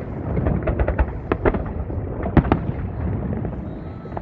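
Fireworks bursting: a rapid, irregular run of cracks and bangs over a continuous low rumble, thinning out a little toward the end.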